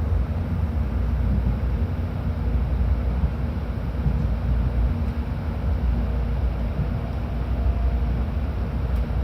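Cabin noise inside a JR Kyushu shinkansen car: a steady low rumble with a faint hum.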